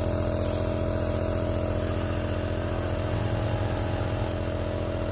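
Nebulizer compressor running with a steady buzzing hum, misting medicine for a child's lingering cough.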